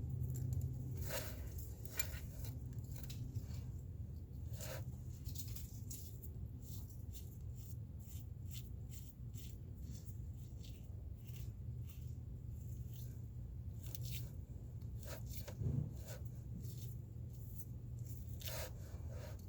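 Irregular light clicks and scrapes of hand tools working on metal, over a steady low hum, with one stronger knock about three-quarters of the way through.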